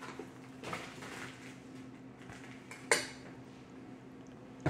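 Kitchen clatter: a few light clinks of utensils, then one sharp clank of a black non-stick cooking pot being handled on the counter just before three seconds in.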